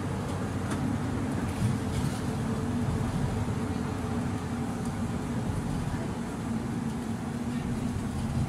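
Steady low rumble of a city bus, engine and running noise heard from inside the passenger cabin, with a faint even hum beneath and a few light rattles.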